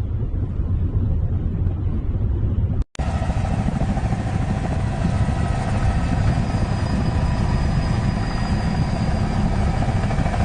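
A low rumbling noise. After a brief cut about three seconds in, a steady mechanical drone follows, like a running motor, with several held tones over a low rumble.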